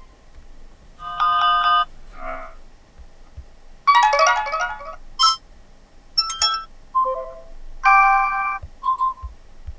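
Short snippets of one ringtone after another played from the TCL Tab 10L tablet's speaker. There are about eight different chimes, chords and note runs, each cut off after a second or less before the next begins, as ringtones are previewed in turn.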